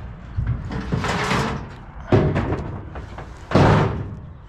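Truck door slammed shut: a rustle, a sharp knock just after two seconds, then the loudest slam about three and a half seconds in, over a low hum.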